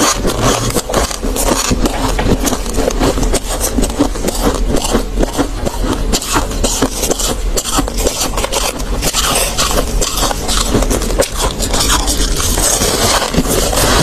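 Freezer frost crunching, both as it is chewed and as fingers crush and scrape it in the tray, picked up close by a clip-on microphone. It comes as a dense, unbroken run of crackling crunches, with a low hum underneath.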